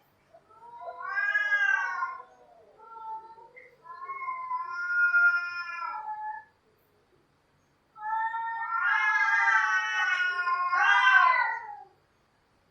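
Cats yowling: drawn-out, wavering caterwauls with pitch that bends up and down. There are three bouts, with a short pause before the last, which runs about four seconds.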